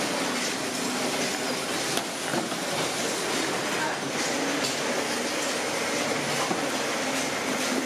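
Steady mechanical din of paper-tube factory machinery running, a continuous rattling clatter with scattered light clicks.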